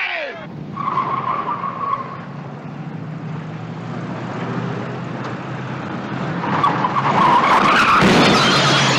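Car engines running with tyres squealing as cars skid through a chase. There is a short squeal about a second in, and a louder, longer tyre squeal near the end as a car goes past close.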